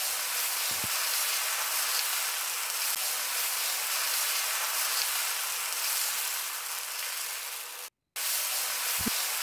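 Dosa batter sizzling on a hot flat pan, a steady hiss that cuts out for a moment near the end and then resumes.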